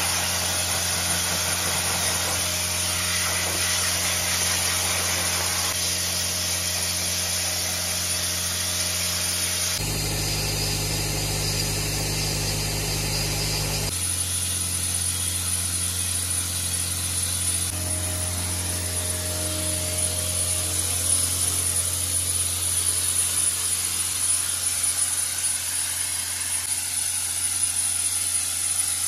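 Soda blaster spraying baking soda against a fibreglass sailboat hull, stripping the old ablative bottom paint: a steady blasting hiss over a low, even hum. The hum is steady throughout, and the sound shifts abruptly twice near the middle.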